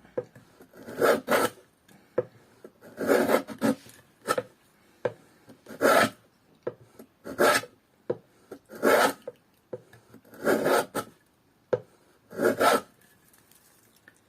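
A hand tool rasping wood in repeated long strokes, about one every one and a half seconds, with light taps between strokes: excess wood being taken down from a glued repair.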